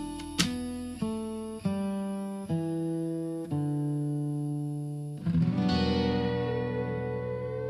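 Background music: slow, single plucked guitar notes, then a fuller chord struck about five seconds in that rings out and slowly fades.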